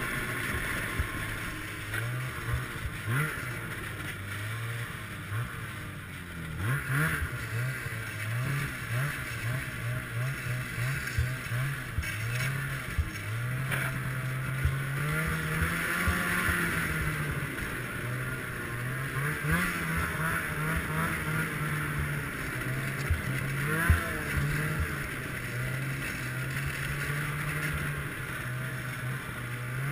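Ski-Doo Summit X two-stroke snowmobile engine running under way, its pitch rising and falling again and again as the throttle is opened and eased off. Short knocks and clatter come through from the bumpy trail.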